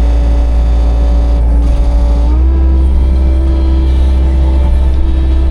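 Skid steer loader engine running steadily, its pitch stepping up a little about two seconds in as the engine speeds up.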